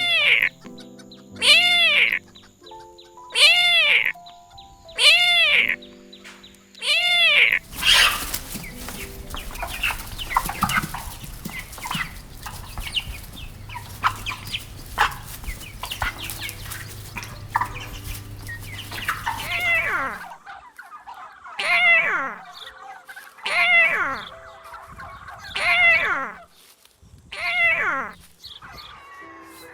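Kitten meowing over and over, about one meow every two seconds, over soft background music with held notes. In the middle the meows stop for about twelve seconds of busy scratchy noise with short calls, then the regular meowing resumes.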